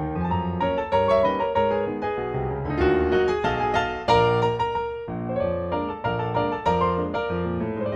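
Piano music as a soundtrack: a continuous run of melody notes over lower bass notes.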